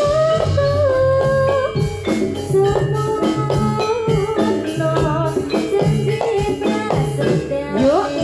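Javanese gamelan ensemble playing jathilan music in an instrumental passage. A wavering melodic line sits over struck metallophone notes, low drum tones and sharp percussion strikes.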